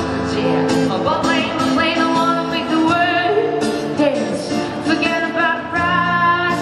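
A woman singing a pop song live into a microphone, accompanied by acoustic guitar, with long held notes sung with vibrato.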